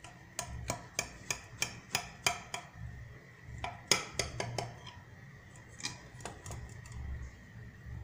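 A metal utensil cutting into an apple cake in a glass baking dish, clinking against the glass: a run of sharp regular clicks, about three a second, then a louder cluster of clinks in the middle and a few more later.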